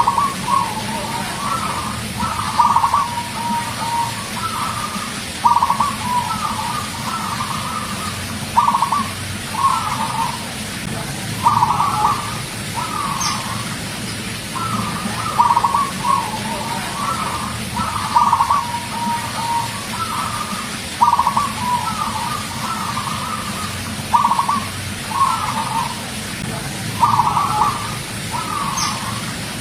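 Zebra dove (perkutut) singing: a phrase of quick staccato coos, repeated about every three seconds, over a steady low background hum.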